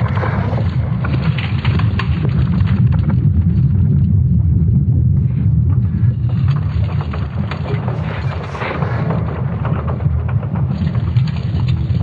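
Sonification of Earth's magnetic field: a deep, continuous rumble with crackling noise above it, swelling around a second in and again near the end.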